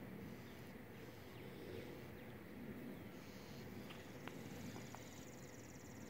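Faint open-air ambience with a steady low rumble; from about halfway in, a high, rapid buzzy trill runs on, with a couple of faint ticks.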